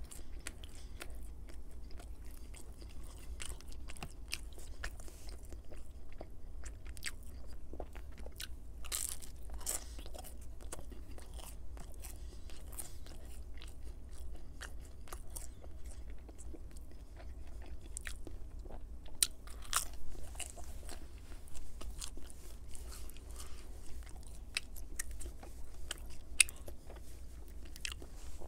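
Close-miked chewing and biting of pizza, with irregular wet mouth clicks and crunches.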